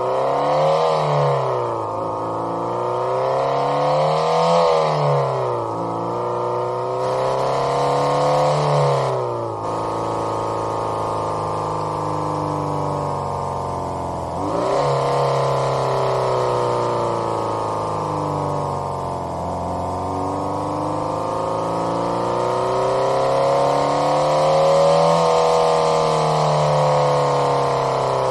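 Homemade optical engine-sound generator imitating a Subaru EJ20 flat-four with equal-length exhaust as heard from inside the car, revving up and down through the mid range in repeated accelerations. The pitch drops suddenly about nine seconds in, jumps up again about fourteen seconds in, then swells slowly and eases off twice.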